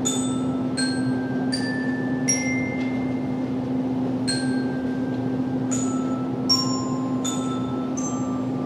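Handbells rung one note at a time in a slow melody, each note ringing on after it is struck, with a short pause partway through. A steady low hum lies underneath.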